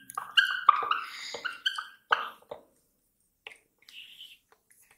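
Whiteboard marker squeaking against the board while a word is written: a quick run of short squeaky strokes for about two and a half seconds, then a few faint scratches.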